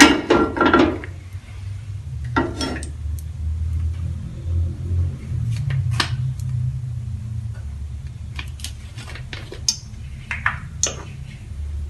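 Frying pan knocking against the gas stove's grate, loudest at the very start, then a few lighter knocks and clicks, over a steady low rumble.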